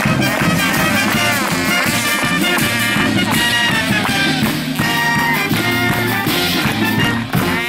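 Lively band music with melody lines and a steady beat.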